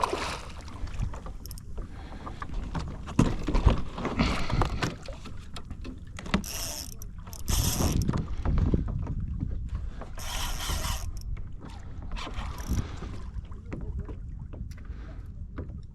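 Sounds of fighting a large redfish from a kayak: a fishing reel and rod working, with knocks against the kayak hull. There are bursts of louder noise about six to eight seconds in and again around ten seconds.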